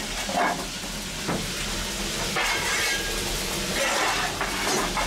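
A fireman's steel shovel scraping into coal on the footplate's shovelling plate and swinging it into the firebox, a few scrapes and clinks of lumps, over the steady hiss of the BR Standard Class 2 steam locomotive 78022.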